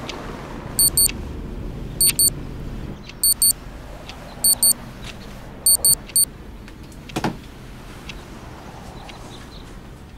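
Alarm clock beeping in quick pairs of short high beeps about once a second, the last burst a triple, until it is switched off about six seconds in. A single sharp knock follows a second later.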